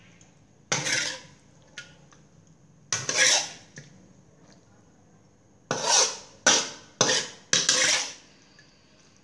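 Metal spatula scraping across a metal wok as stir-fried eggplant and pork are scooped out, about six quick, sharp scrapes: one about a second in, one near 3 seconds, then four close together near the end.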